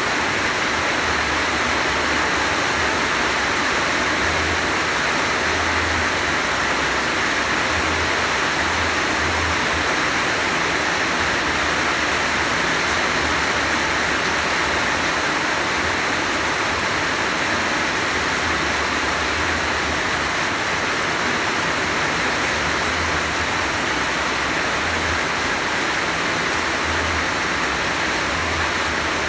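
Heavy rain falling in a steady downpour, an even hiss that neither builds nor eases, with a faint low rumble coming and going underneath.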